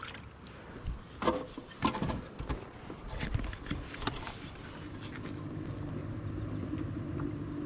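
A few sharp knocks and clatters in the first few seconds, as of gear handled on a kayak, then a steady low motor hum that sets in about five seconds in and slowly grows louder.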